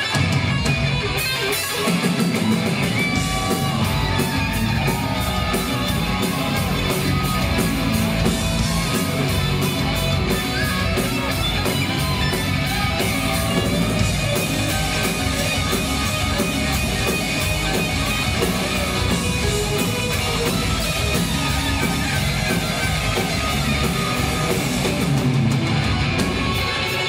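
Live hard rock band playing an instrumental passage: electric guitars with gliding, bent notes over bass and a steady drum beat.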